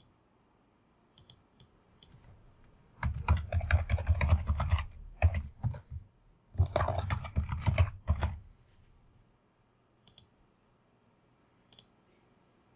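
Typing on a computer keyboard: two runs of rapid keystrokes of about two seconds each, then a few single clicks near the end.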